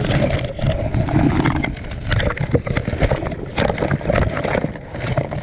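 Turbulent water and bubbles churning around an underwater camera in shallow surge, heard as a low rumble with a dense, irregular crackle of clicks.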